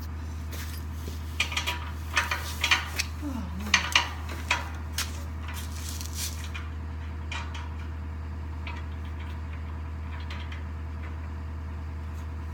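Sharp metal clinks and clanks of bolts and tools being handled on a steel power broom attachment for a skid loader, mostly in the first half, over a steady low hum.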